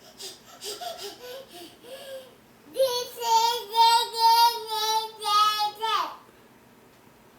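Young child singing in a high voice: a few short syllables, then one long note held for about three seconds with pulsing loudness, ending in a quick upward slide.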